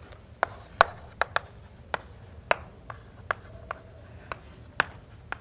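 Chalk writing on a chalkboard: a string of sharp, irregular taps and short scratches as letters are formed, about two a second.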